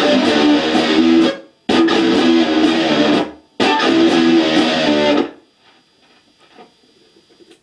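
Stratocaster-style electric guitar played in three loud phrases, each cut off short before the next, the playing stopping about five seconds in and leaving only a few faint clicks.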